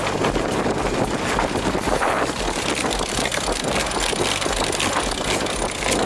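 Wind buffeting the microphone and water rushing along a sailing yacht's hull, over a low steady engine hum.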